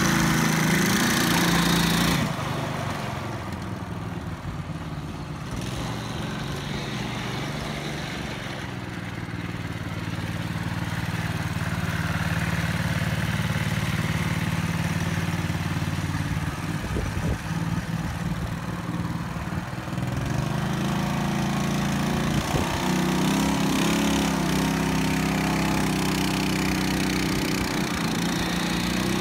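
Small single-cylinder engine of a kids' quad ATV running under way, its pitch rising and falling with the throttle, with an abrupt change in the sound about two seconds in.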